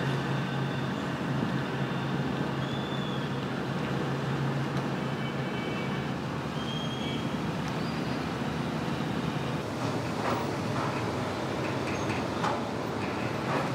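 Ships' engines droning steadily across the harbour as tugboats push a container ship out of port, with a low hum that weakens about halfway through. A few faint high chirps and short clicks come through near the end.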